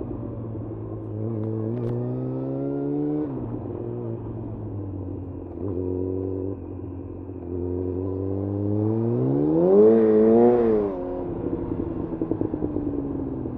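Yamaha FZ1's inline-four engine pulling through the gears. Its pitch rises and drops back at each upshift, with the loudest, quickest rev about ten seconds in. It then settles to a low, uneven running near the end.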